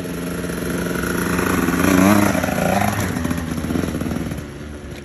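Two-stroke KTM dirt bike engine revving as it is ridden, the pitch climbing to its loudest about two seconds in, then rising and falling with the throttle and easing off near the end.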